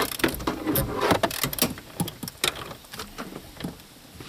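Irregular metallic clicks and knocks of a ratchet and socket on a bolt being shaken up and down and turned to catch its threads. The clicks are busiest in the first couple of seconds and thin out towards the end.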